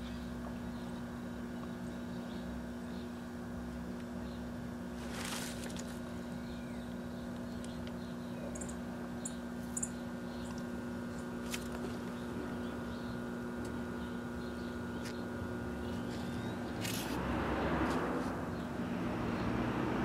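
1984 Kenmore microwave oven running, a steady electrical hum with a low rumble underneath. A few short high chirps are scattered through it, and a swell of rushing noise comes near the end.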